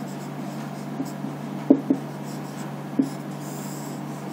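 Marker pen writing on a whiteboard: soft scratching strokes, with three short louder strokes, two close together about a second and a half in and one about three seconds in. A steady low hum runs underneath.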